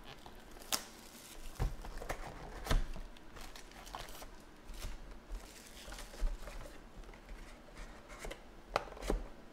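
Plastic shrink wrap and foil trading-card packs crinkling and rustling as a card box is unwrapped and emptied, with sharp taps and clicks as packs and cardboard are handled and set down.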